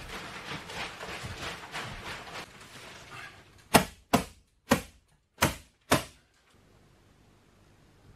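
Thin plastic vapor barrier sheeting crinkling and rustling as it is pulled out across the wall. Then come five sharp clacks of a staple gun fastening the sheet to the framing, over about two seconds; the first is the loudest.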